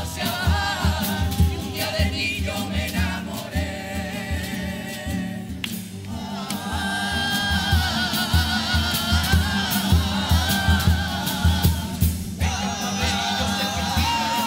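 Youth carnival comparsa choir singing in several voices over a steady drum beat, with short breaks between phrases about six and twelve seconds in.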